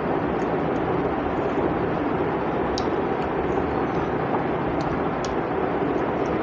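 Steady rumbling background noise, with a few faint clinks of a spoon against a glass bowl as curry is poured over rice.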